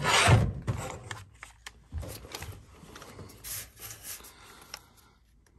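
Rubbing and scraping, loudest in one burst at the start, then a run of shorter scrapes and light clicks that die away near the end: handling and movement noise.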